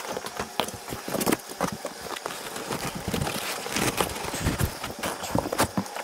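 Packaging and parts being handled while a box is unpacked: irregular knocks, clatters and rustling.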